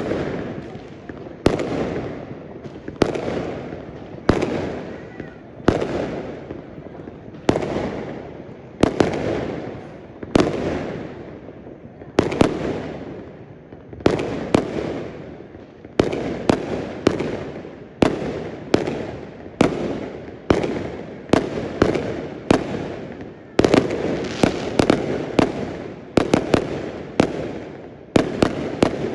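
Fireworks going off in a long series of loud bangs, each followed by a fading rumble. They come about one every second and a half at first, then faster and overlapping from about halfway through.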